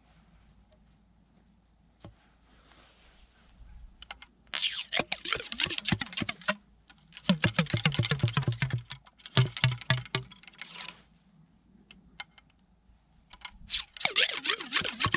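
Wooden ramrod worked rapidly up and down inside the barrel of a 12-gauge percussion muzzleloading shotgun, seating the overshot cards over the shot charge. It makes quick clicking, rattling strokes in four bursts of a second or two each, the first about four and a half seconds in.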